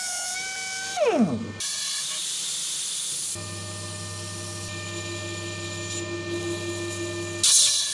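Handheld belt sander whining at a steady pitch on a spinning steel bushing, switched off about a second in, its pitch falling as it spins down. A stretch of hissing follows, then the lathe running with a steady hum while abrasive paper is held against the turning work, and a short loud burst of hissing near the end.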